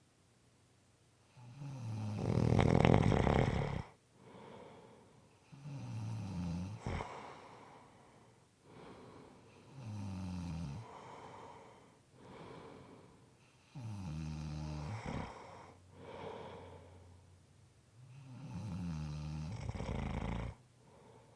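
A person snoring in slow, regular breaths, about five snores roughly four seconds apart. Each is a low, rattling pitched snore followed by a softer breath, and the first is the loudest.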